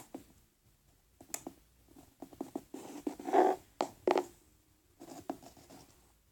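Small plastic toy figures being handled and moved on a surface: irregular light clicks, knocks and short scrapes, with gaps of quiet between them.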